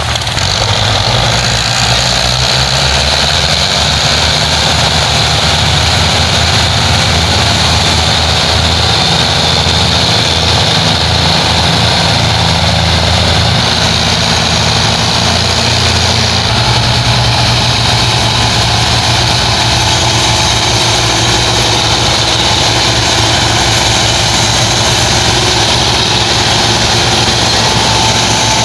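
Several diesel farm tractors running hard together, hauling a heavily loaded trolley: a loud, steady engine drone whose pitch shifts about sixteen seconds in.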